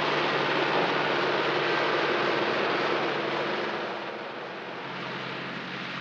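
Ford 7710 tractor's turbocharged diesel engine running steadily under load while ploughing, a constant drone. It becomes quieter about four seconds in.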